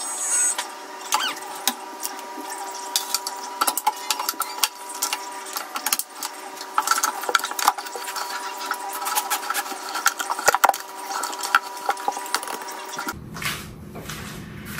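Irregular light clicks, taps and rubbing of small objects being handled, over a steady hum of several fixed tones. The hum and the band-cut low end stop about 13 seconds in.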